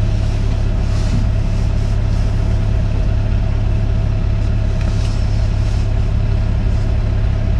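Hitachi Zaxis 130 excavator's diesel engine running steadily, heard from inside the cab, with no change in pitch.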